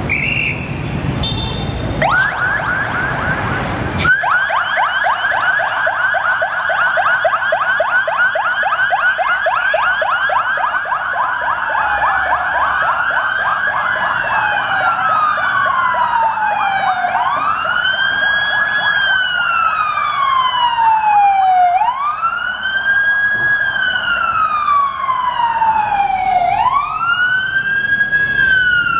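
Electronic sirens of a fire-engine convoy: a rapid yelp starts about two seconds in, then around twelve seconds in gives way to a slow wail that rises quickly and falls slowly, repeating about every four to five seconds.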